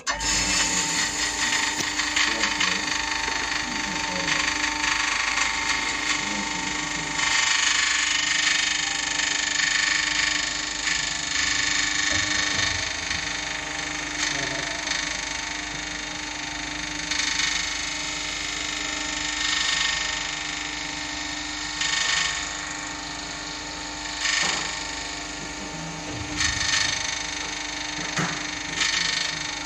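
OTIS drum-type kitchen lift winding machine running as its drum turns and winds in the steel wire rope: a steady motor hum, with a higher rushing noise that swells and fades several times.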